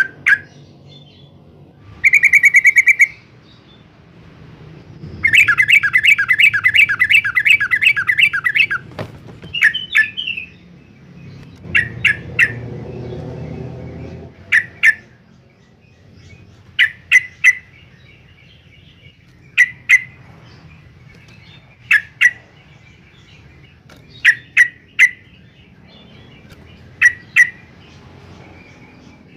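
Yellow-vented bulbul calling: a short trill, then a rapid run of loud chirping notes lasting about three seconds, then sharp short calls in pairs and threes every couple of seconds.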